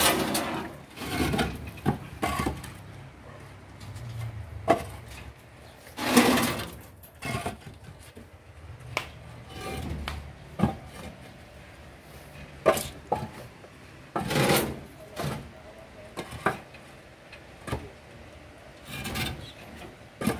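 Concrete hollow blocks scraping and knocking as they are slid across a steel truck bed and set down on a stack, in irregular strokes every second or two with a few longer scrapes.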